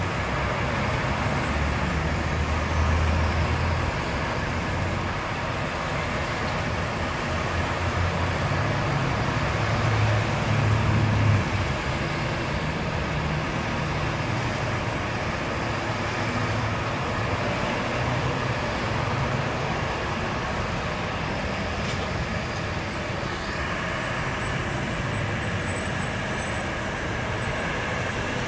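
Steady road traffic noise from cars and heavier vehicles, with a low engine rumble that builds and is loudest about ten seconds in, then eases off.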